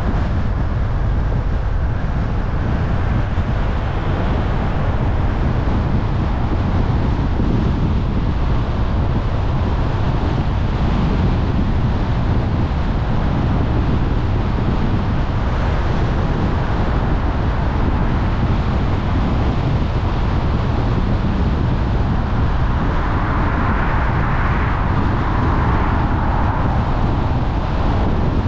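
Steady road noise of a car driving, low tyre rumble with wind buffeting the microphone. A brief swell of louder hiss comes about 23 seconds in.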